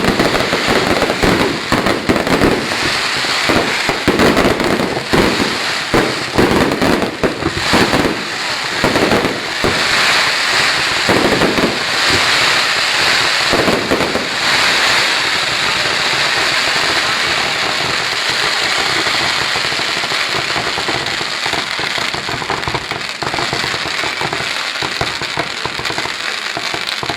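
Fireworks going off: a rapid run of bangs and booms, then from about halfway a continuous dense crackling that drops off at the very end.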